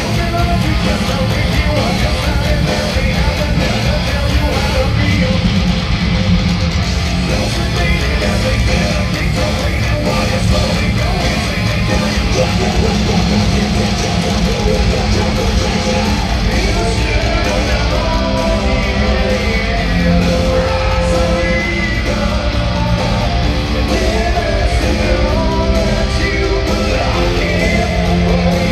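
Heavy metal band playing live through an arena PA, with distorted electric guitars, bass and drums, heard loud from within the audience. A melodic line stands out over the band in the second half.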